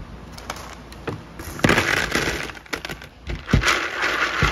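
Small aquarium pebbles poured into a round glass fish bowl, rattling and clinking against the glass and each other. They come in two pours, the first about a second and a half in and the second from about three and a half seconds, after a few scattered clicks.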